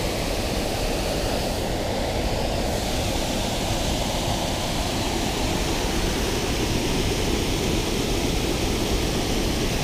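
Steady rush of water pouring over a small weir into the river, an even, unbroken noise.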